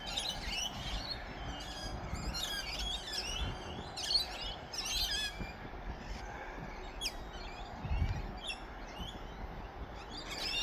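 Several birds chirping and warbling in short repeated calls, over a steady low hum of distant road traffic.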